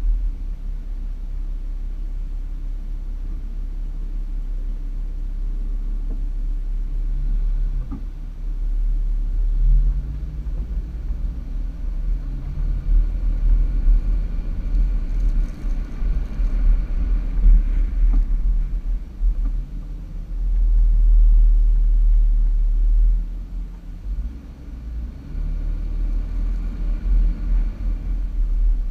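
Toyota Land Cruiser driving over soft sand dunes: the engine pulls under load with revs rising and falling, over a heavy low rumble. A loud surge comes about two-thirds of the way through.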